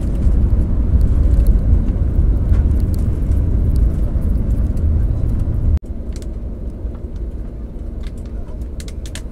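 Loud low rumble inside the cabin of an Airbus A321neo rolling out along the runway after touchdown, with its ground spoilers raised. The rumble drops suddenly to a lower level about six seconds in.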